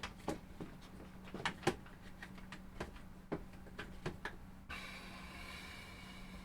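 Irregular small clicks and taps, about a dozen over four and a half seconds, then a steady faint hiss.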